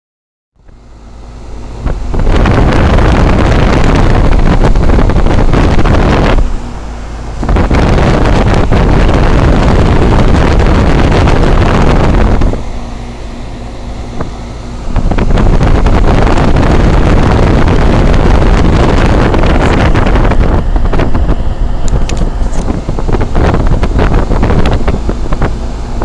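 Loud rush of air from a 2004 Goodman 3.5-ton heat pump's outdoor fan blowing onto the microphone. It fades in over the first two seconds and drops away briefly twice, about a quarter and about halfway through.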